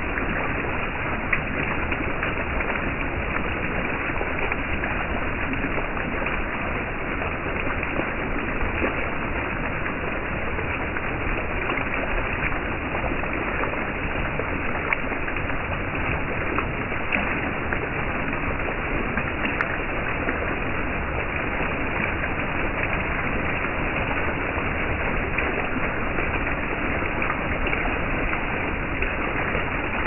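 Water fountain of Korean earthenware jars: thin jets rising from the jar lids fall back and splash onto the jars and wet paving in a steady, even splashing, with faint ticks of single drops throughout.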